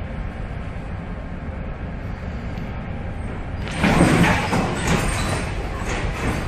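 Steady low rumble of storm wind and the ship underway. About four seconds in, a loud crash as the container ship's bow slams into a big wave, followed by the rushing wash of spray that slowly fades.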